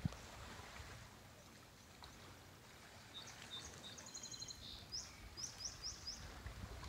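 A small songbird calling: a few high chirps, a quick trill, then four short sharp notes in a row, over faint wind and water noise.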